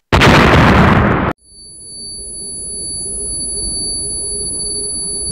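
A loud explosion sound effect lasting about a second, followed by a steady high-pitched ringing tone over a low muffled rumble that holds until near the end.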